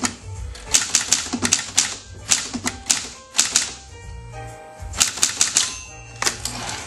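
Hermes Ambassador manual typewriter being typed on: sharp keystroke clacks of the typebars striking the platen in quick, irregular runs, with a pause of about a second midway.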